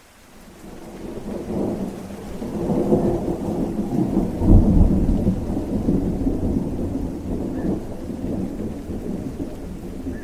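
A long roll of thunder over steady rain, building for a few seconds, peaking with a deep crack of rumble about midway, then slowly fading.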